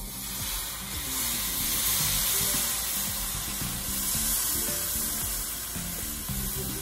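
Coconut milk poured into a hot wok, sizzling steadily as it hits the hot metal.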